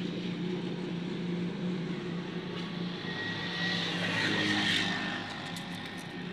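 A steady mechanical drone with a low hum. A swell of rushing noise rises and fades about four to five seconds in, followed by a few light clicks.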